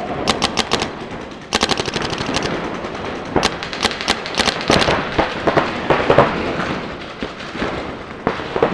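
Paintball markers firing rapid strings of shots: a short burst just after the start, a faster, longer string about a second and a half in, then scattered shots and short bursts.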